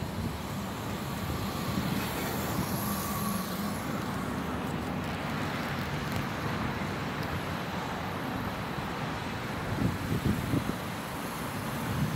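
Steady road traffic noise from cars on the road, with a few louder bumps near the end.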